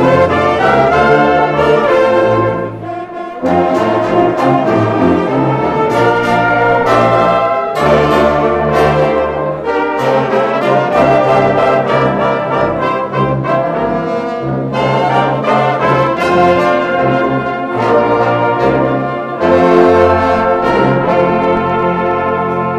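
Brass band of trumpets, trombones and tubas playing a piece together, with a low bass line under the melody. The sound dips briefly a little under three seconds in, then the full band comes back.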